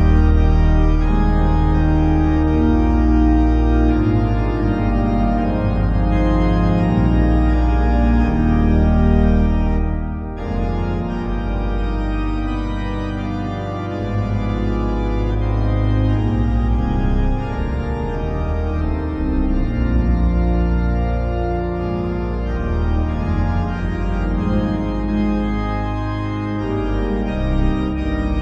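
Organ music playing slow, sustained chords over a deep held bass, starting suddenly at the beginning.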